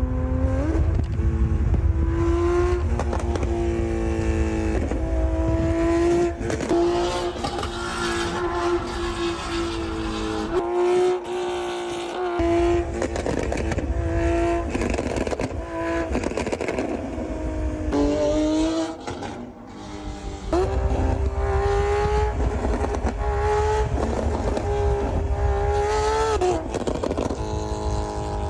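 Porsche 911 GT3's naturally aspirated flat-six engine running hard at high revs. Its pitch is held fairly steady for long stretches, with several drops and rises between gear changes and lifts off the throttle, and occasional sharp crackles.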